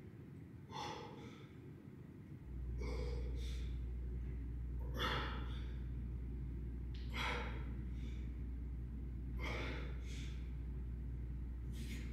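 A man breathing hard through a set of weight-lifting reps: a loud breath in and out roughly every two seconds. A steady low hum comes in about two seconds in.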